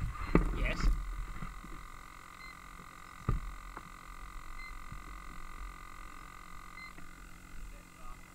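Handling noise from an RC plane with a camera mounted on it as it is picked up and carried: rubbing and bumps against the camera, then a sharp click about three seconds in. A faint steady whine runs on with short faint beeps every couple of seconds; the propeller is not turning.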